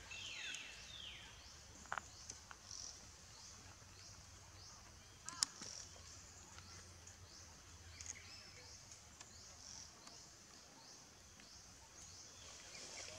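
Faint outdoor ambience: an insect chirping steadily in short high pulses about twice a second. A few calls falling in pitch sound near the start, and two or three sharp clicks come through, the loudest about five seconds in.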